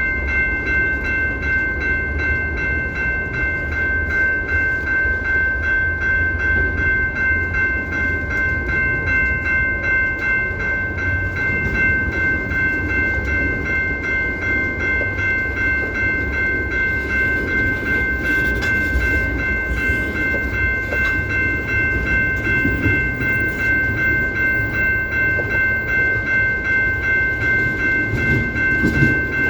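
Locomotive air horn sounding a steady multi-note chord, held without a break and without any change in pitch, over a low rumble.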